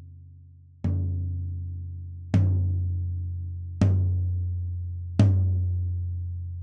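Rack tom struck with single hits, four times about a second and a half apart and growing louder, each ringing out on a steady low pitch that slowly fades. It is heard through its rim-mounted close microphone alone.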